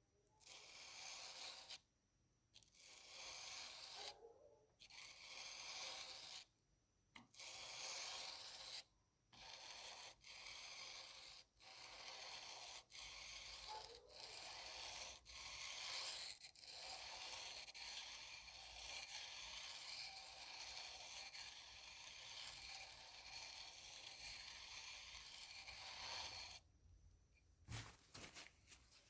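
Steel chisel bevel rubbed back and forth on wet 320-grit sandpaper laid over glass: a gritty scraping in strokes. At first the strokes last a second or more with short pauses between them; about halfway through they turn quicker and run almost without a break, and stop near the end with a few light clicks.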